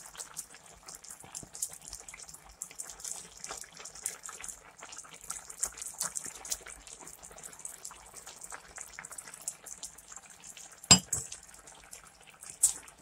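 Thin curry bubbling and crackling at a boil in a frying pan, with a spatula stirring through it. A sharp knock about eleven seconds in and a lighter click near the end.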